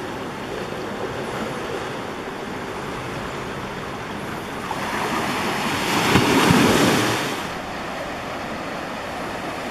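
Ocean surf washing in choppy water, with one louder wave surge building about five seconds in and fading away about two seconds later.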